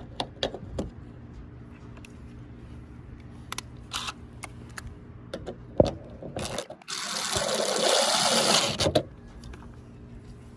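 Clicks and taps of small parts being handled, then a small power tool running for about two seconds, loud and whirring, before it stops.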